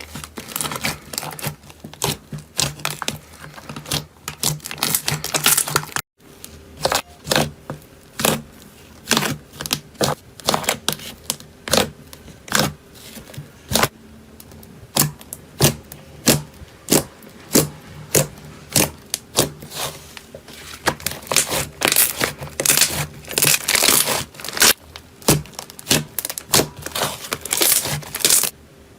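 Slime being squeezed and pressed by hand, giving a dense, irregular run of sharp crackles and pops, with a brief break about six seconds in.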